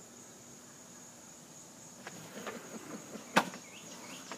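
Steady high-pitched chorus of insects such as crickets in the trees and grass, with one sharp click about three and a half seconds in.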